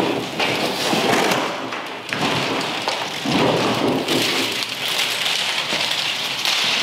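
Black plastic packing straps being pulled off a cardboard box and bundled up by hand: a loud, continuous crackling rustle.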